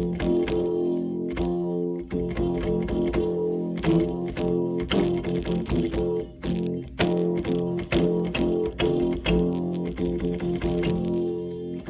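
Electronic keyboard playing a run of quick repeated notes over held tones, in a plucked, guitar-like or organ-like voice setting.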